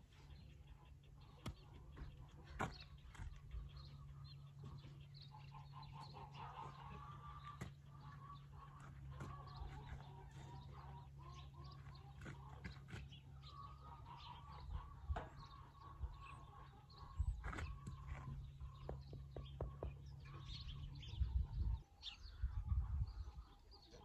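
Faint farmyard background: birds chirping and calling in the distance over a low steady rumble, with scattered light clicks and knocks and a few heavier low thumps near the end.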